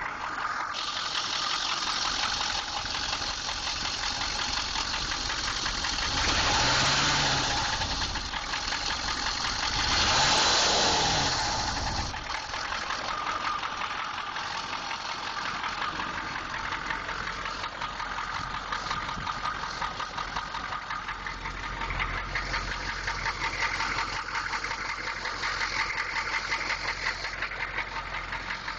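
6.2-litre engine idling with a rapid, steady knock, revved up and let back down twice, briefly, about six and ten seconds in.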